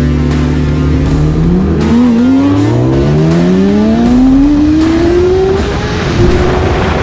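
Motor vehicle engines accelerating hard: their pitch climbs steadily for about four seconds, a second engine rising just behind the first, then levels off near the end.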